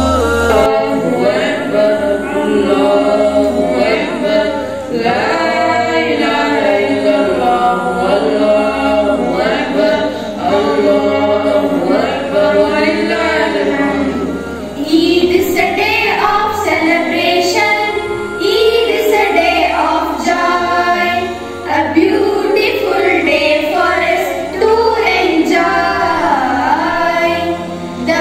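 Children singing a song together in chorus, over a low, steady accompaniment that shifts in steps.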